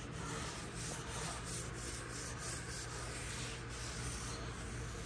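Paper towel held in tongs rubbing across the oiled steel top of a gas griddle in soft, repeated wiping strokes, spreading a thin coat of seasoning oil.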